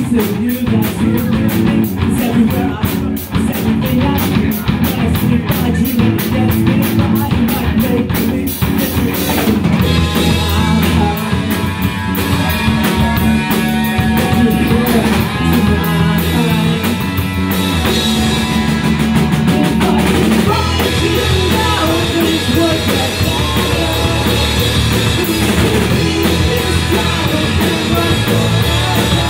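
Live punk rock band playing: electric guitar, bass guitar and drum kit, with a singer's voice over them.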